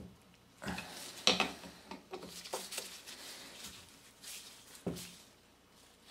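Long screwdriver tightening the steel gear case screws on a Honda Accord starter motor: irregular clicks and short scrapes of the driver tip turning in the screw heads, loudest about a second in.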